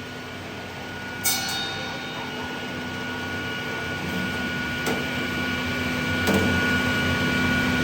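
Twelve-blade ice-block cutting machine running with a steady motor hum that slowly grows louder, with a few sharp knocks of ice against the machine about a second in and again around five and six seconds in.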